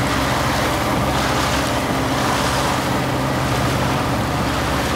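Motorboat engine running steadily underway, with water rushing past the hull and wind buffeting the microphone.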